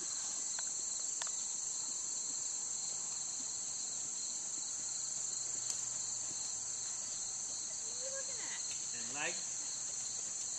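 Steady high-pitched chorus of insects droning without a break, with a few faint clicks and a short rising-and-falling pitched call near the end.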